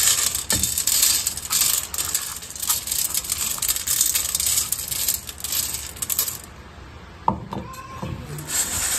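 Dry cat kibble poured from a scoop onto a round metal tray, the pellets rattling on the metal. The pouring stops about six seconds in and starts again just before the end.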